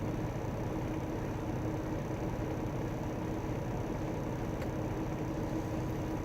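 Semi truck's diesel engine idling steadily, heard as a constant low rumble with a faint steady hum inside the cab while the truck sits on the scale.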